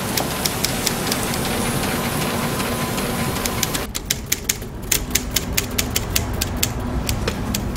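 Vintage manual typewriter being typed on: rapid key strikes clacking at about four to five a second, sharp and distinct from about halfway, and blurred under a steady hiss before that.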